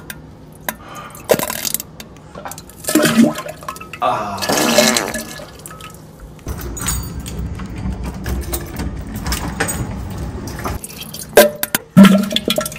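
Toilet flushing: water rushes steadily for about four seconds, then stops suddenly, among several short knocks and clatters.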